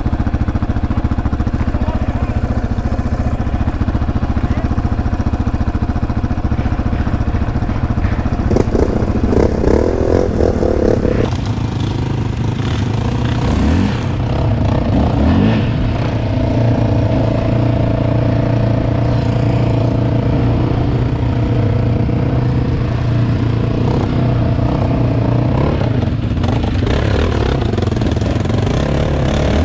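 ATV engines running: a quad idling and revving nearby, louder for a couple of seconds about nine seconds in. From about eleven seconds in, an ATV is ridden along a dirt trail behind others, its engine running steadily.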